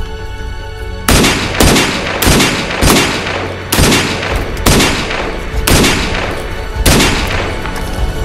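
A string of about eight single gunshots, starting about a second in and spaced half a second to a second apart, each followed by an echoing tail. Soft background music plays before the first shot.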